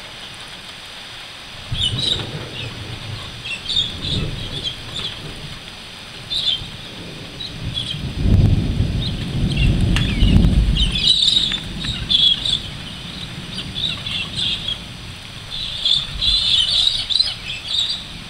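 Birds chirping and calling over a low roll of thunder that swells briefly a couple of seconds in, again around four seconds, and longest and loudest from about eight to eleven seconds in.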